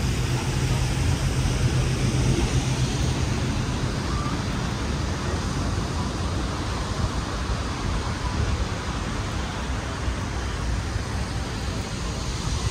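Steady city street noise: traffic on a busy boulevard with faint voices of passers-by.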